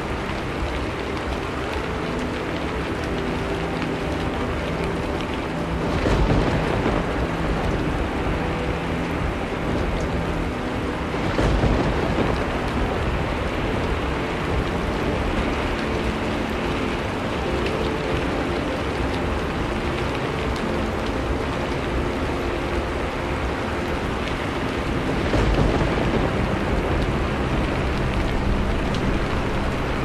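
Steady rain falling, with three low rumbles of thunder swelling up about six, eleven and twenty-five seconds in.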